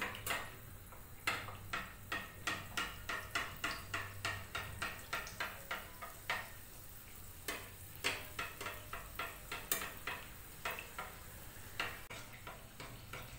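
A spoon clicking against a small non-stick kadhai over and over, about three times a second, while an anarsa fries in hot oil with a low sizzle. The clicks pause briefly about halfway through.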